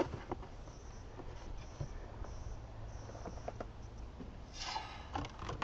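Scattered light clicks, taps and rustles of small objects being handled, over a faint steady low hum, with a brief busier cluster of handling sounds near the end.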